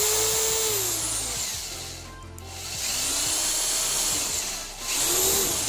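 Electric drill running in three bursts, its motor whine rising as it spins up and falling as it slows, while the bit bores slowly through the car's trunk lid to make a spoiler mounting hole.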